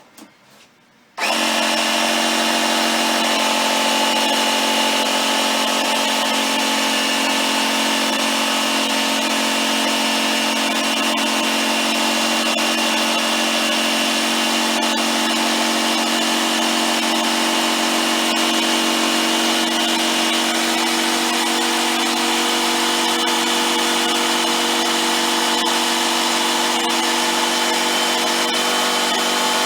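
Small electric air compressor switching on about a second in and running steadily, pumping air into a punctured wheelbarrow inner tube.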